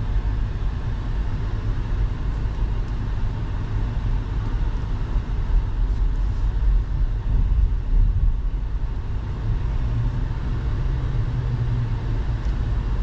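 Car driving up a winding mountain road, a steady low rumble of engine and tyre noise.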